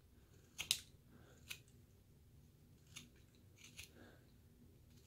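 Carving knife slicing small cuts into basswood: a few short, sharp snicks, the loudest a little over half a second in, then others around one and a half, three and nearly four seconds in.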